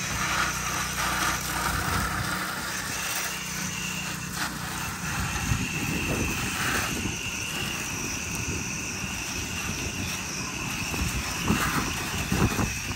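Pressure-washer wand spraying a rinse stream onto vinyl siding and soffit: a steady hiss of water, with an uneven low rumble building through the second half.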